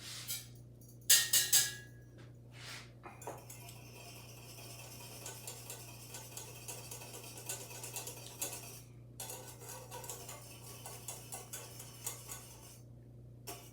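Metal kitchen utensils clinking and scraping against pots and dishes: a few sharp, ringing clinks about a second in, then a long run of lighter clinks and scraping, over a steady low hum.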